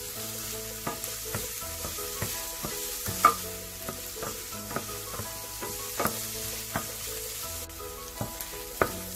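Chopped red onion with ginger and garlic frying in oil in a steel pan, sizzling steadily while a wooden spatula stirs it. The spatula scrapes and knocks against the pan at irregular moments, the sharpest knock about three seconds in.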